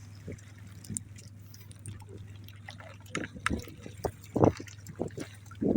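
Irregular small splashes and drips of water, with sharper ones about three and a half and four and a half seconds in, over a steady low hum.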